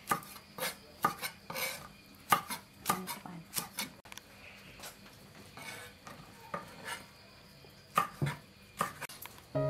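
Kitchen knife chopping green beans on a wooden chopping board, a quick run of knocks. After about four seconds it gives way to a metal spoon clinking and scraping on a ceramic plate as cooked fish is picked off the bone.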